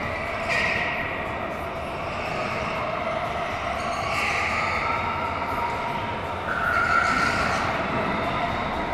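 Go-karts running around an indoor track: a steady motor drone whose pitch rises and falls as the karts speed up and slow, with short high-pitched squeals about every three to four seconds.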